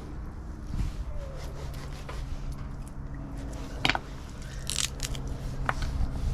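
Knife cutting up a whole chicken, crunching and scraping through flesh and bone, with a few sharp cracks a few seconds in, over a steady low hum.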